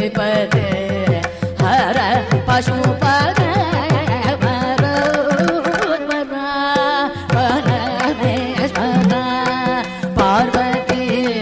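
Carnatic concert music in raga Vachaspati, Adi tala: a gliding, ornamented melodic line over a steady tambura drone, with mridangam strokes keeping a dense rhythm; around the middle a single note is held for about a second.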